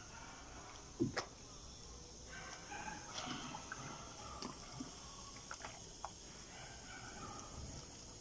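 Faint sloshing and dripping of water in a plastic tub as a fiber optic splice closure is pushed under the surface, with a knock about a second in and a few small clicks.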